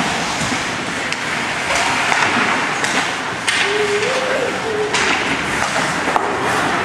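Ice hockey play: skate blades scraping the ice under a steady rink din, with several sharp clacks and knocks of sticks and puck against the boards, the loudest near the end. A short voice call rises briefly in the middle.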